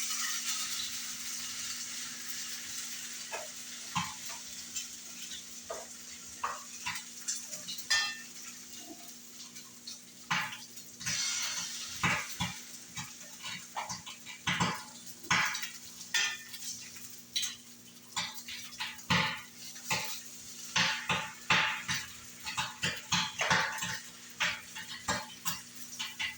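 Food sizzling in a frying pan, loudest at first and dying down, with a cooking utensil stirring, scraping and clinking against pots and pans. About ten seconds in, the clinks and knocks grow frequent and sharp.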